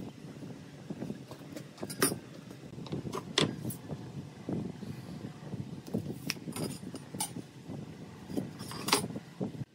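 Workshop handling sounds: a wooden block and hand tools picked up and set down on a wooden workbench, giving scattered knocks and light clinks, the sharpest about 2, 3.5 and 9 seconds in, over low background noise.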